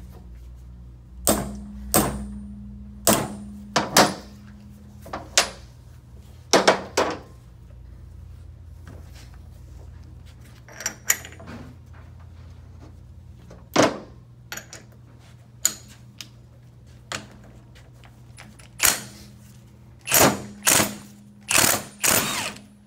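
Separate metallic clanks and knocks of steel tools and transmission parts being handled on a workbench, over a steady low hum. In the last few seconds, several short louder bursts as a cordless impact wrench is run on the nut of a CVT primary pulley shaft to spin it off.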